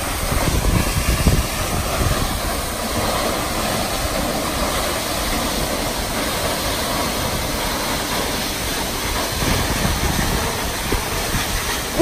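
A large waterfall crashing into its pool close by: a steady rush of falling water and spray with a deep rumble underneath.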